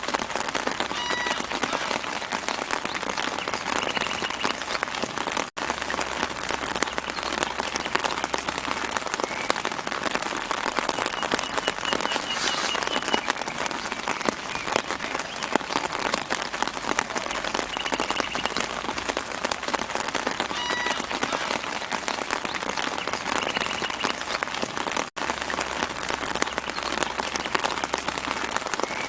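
Steady gentle rain pattering on leaves and the ground, a dense even hiss of fine drops, with a few faint high bird chirps now and then. The sound cuts out for an instant twice.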